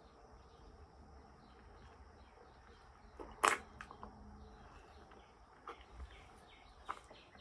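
Mouth sounds of eating durian flesh straight from the husk. It is mostly quiet, with one sharp, loud mouth sound about three and a half seconds in and a few small clicks near the end.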